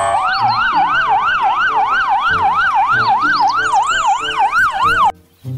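Police car siren in a fast yelp, its pitch sweeping up and down about three times a second, cutting off suddenly about five seconds in.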